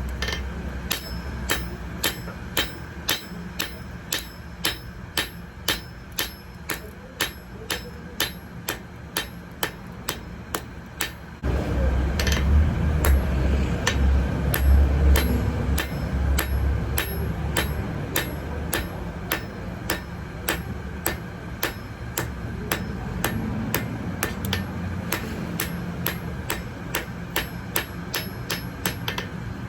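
Hammer striking hot metal on an anvil in a steady rhythm, about two blows a second, each with a short metallic ring. About eleven seconds in, a loud low rumble joins under the blows.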